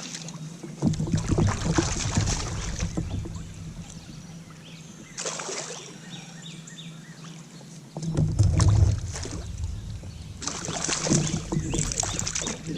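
Water splashing and knocking against a kayak as a hooked smallmouth bass is fought and brought aboard, with heavy low bumps and rumbles on the action-camera microphone, the loudest about 8 seconds in.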